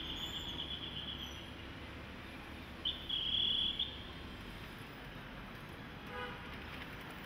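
Steady outdoor background noise, with two high-pitched buzzing tones, the first lasting about a second and a half and the second, louder one about a second, and a brief horn-like toot about six seconds in.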